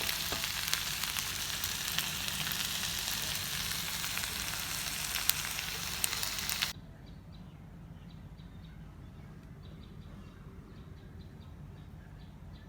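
Beef and potatoes sizzling as they fry, with occasional sharp clicks from stirring. About halfway through, the sizzle cuts off abruptly, leaving a quiet background with faint high chirps.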